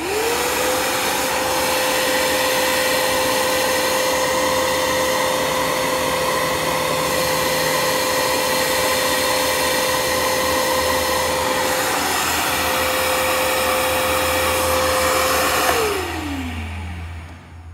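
Shop vac running as a blower, pushing air through its hose: the motor spins up at the start with a rising whine, then runs loud and steady with rushing air. Near the end it is switched off and winds down, the whine falling away.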